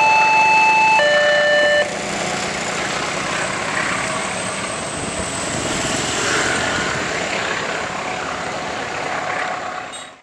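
Railway level crossing warning alarm alternating between two electronic tones about once a second, cutting off about two seconds in. Steady vehicle noise follows.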